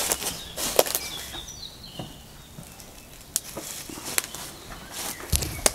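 Irregular footsteps and scuffs of someone walking through a doorway over a debris-strewn floor, with a few faint bird chirps about two seconds in.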